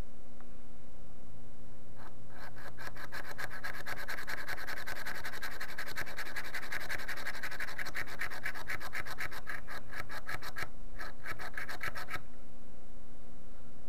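3D-printed PLA hand pump drill worked against a wooden board, its twist bit scraping and rasping the wood in a fast run of repeated strokes from about two seconds in. There is a brief pause, then a shorter burst that stops about a second before the end.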